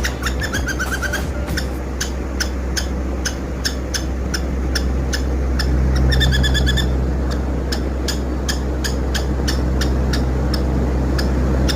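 A small pet's hiccups while it eats: short, high, squeaky chirps about three a second, with a longer falling squeak about a second in and a held squeak about six seconds in. A steady low hum runs underneath.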